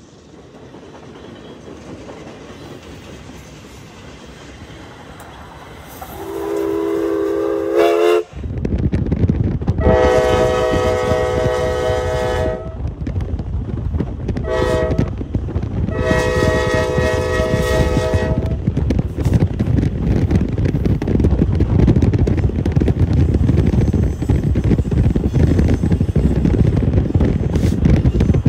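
Passenger train rolling past, then a train's multi-note chime whistle sounding four blasts, long, long, short, long, the pattern of a grade-crossing warning; the first blast rises in pitch as it opens. From about a third of the way in, a steady low rumble of a car driving alongside runs under the blasts.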